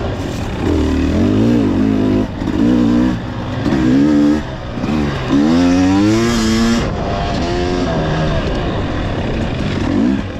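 Dirt bike engine revving up and down again and again as the throttle is worked over rocks and tight turns on a rocky trail, with its highest, brightest rev a little past the middle.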